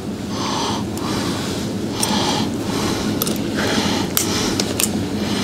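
Kitchen scissors snipping and scraping through a roasted ostrich leg on a plate, with hands pulling at the meat. A few sharp clicks stand out over a steady background noise.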